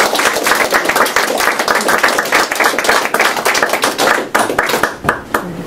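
Audience applauding: many hands clapping at once, thinning out to a few scattered claps near the end.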